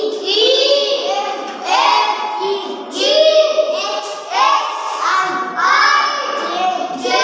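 Young children chanting the letters of the alphabet aloud in a rhythmic sing-song, syllable after syllable in an even beat, as a stick points to each letter on the chalkboard.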